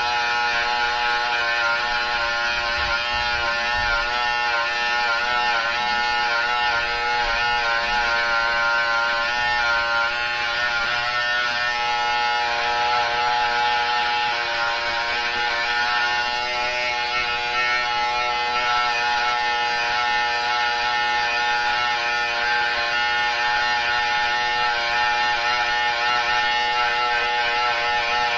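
Electric hair trimmer running continuously at a steady pitch while it is worked against the scalp, its tone wavering slightly now and then during the first ten seconds.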